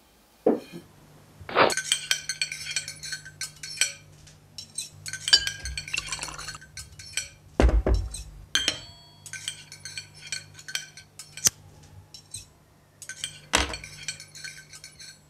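Ceramic plates, cutlery and wine glasses clinking and knocking on a table: plates set down and forks tapping on plates, in many scattered sharp clinks, a few of which ring briefly, with one duller thud about eight seconds in.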